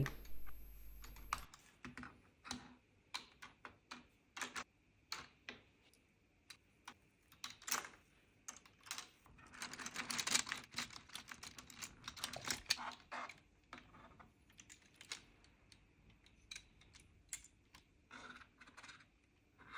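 Small plastic LEGO pieces clicking and rattling as they are handled and pressed together: a run of light, irregular clicks, busiest around the middle.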